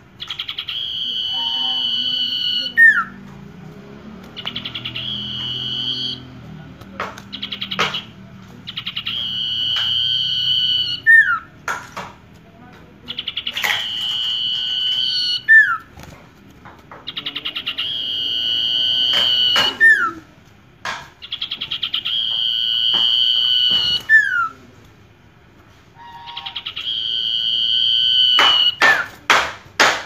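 A caged sirtu songbird singing in full voice: a repeated phrase of long, steady, high whistled notes, about seven of them, each lasting a couple of seconds and ending in a short slurred note. Sharp ticks fall between the phrases.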